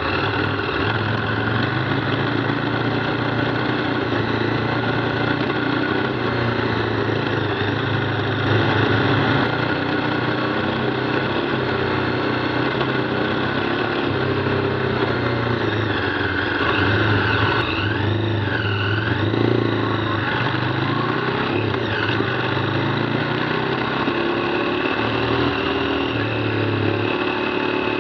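KTM 990 Adventure's V-twin engine running steadily under way, with the revs rising and falling a few times in the second half.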